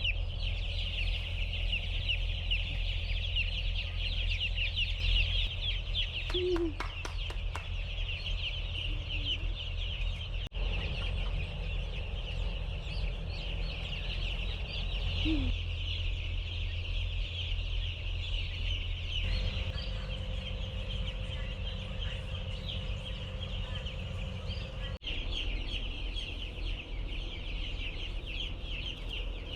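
A large flock of chickens calling continuously, a dense chorus of many short high-pitched cheeps and clucks over a steady low hum.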